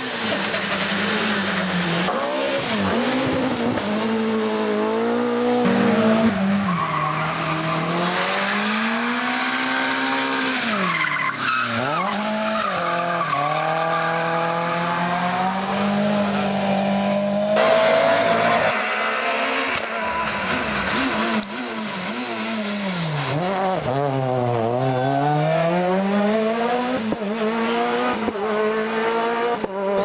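Rally car engines revving hard as the cars pass at speed, the pitch climbing and dropping again and again through gear changes and lifts off the throttle. Several cars follow one another, with abrupt changes in the sound between them.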